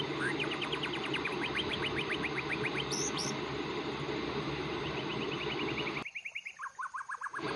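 Background chirping in rapid trills of about ten pulses a second, in two runs, over a steady hiss that drops out about six seconds in.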